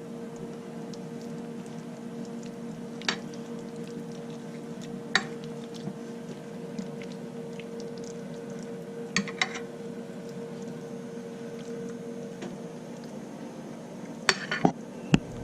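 A spoon clinking and scraping against a baking dish a few times while spreading a thick cheese sauce, with a cluster of clinks near the end. A steady hum runs underneath throughout.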